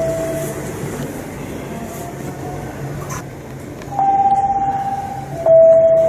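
Shinkansen platform chime: a two-note electronic tone, high then lower, with a low note fading out just after the start and the high-then-low pair sounding again about four seconds in, over a steady low hum.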